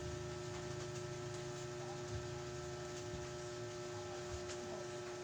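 Steady electrical hum with a constant mid-pitched tone over low room background noise.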